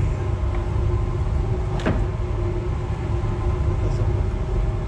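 A steady low mechanical drone with a constant hum runs throughout. A single sharp click or clink comes about two seconds in.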